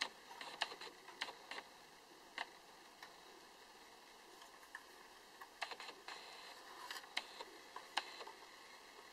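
Light, irregular clicks and taps of a tin-plate toy gun being handled and turned, over faint hiss.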